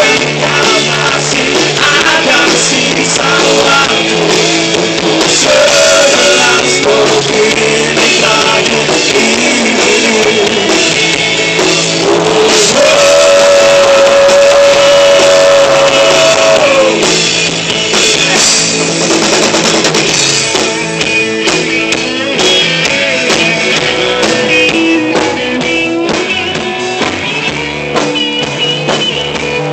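Live rock band playing loud: two electric guitars, bass guitar and a drum kit, with a singer.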